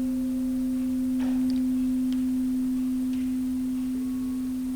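Meditation music: a steady, pure sustained drone tone, with a second, higher tone coming in about four seconds in.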